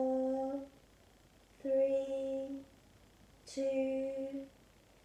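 A woman's voice chanting long, steady notes on one pitch, three times about two seconds apart, as she counts out breaths held in a yoga pose.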